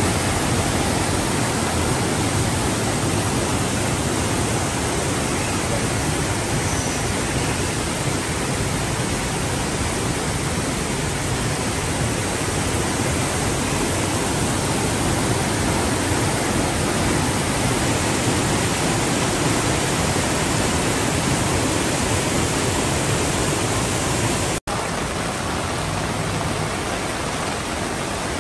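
Floodwater rushing and churning across a street in heavy rain: a steady, loud rushing noise. It breaks off for an instant near the end and then goes on a little quieter.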